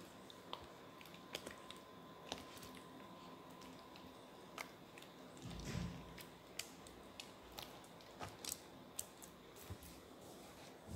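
Faint, scattered sticky clicks of runny clear-glue slime being kneaded by hand, with one soft low thump a little past halfway.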